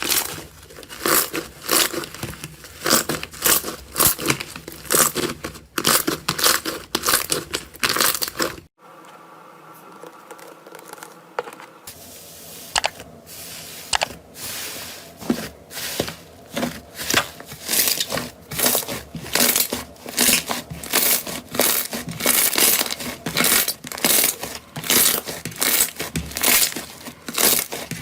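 Slime being squeezed, poked and stretched by hand, giving rapid crackles and pops. Near the end of the first third it drops abruptly to a quieter stretch for about three seconds, then the crackling resumes at a brisk, steady pace.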